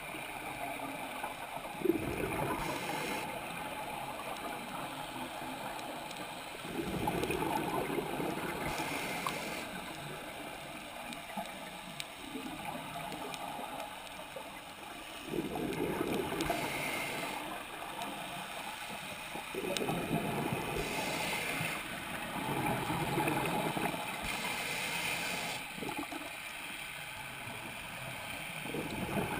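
Scuba diver breathing through a regulator, heard underwater through the camera housing: bursts of exhaled bubbles alternating with the hiss of each inhalation, about one breath every five to six seconds.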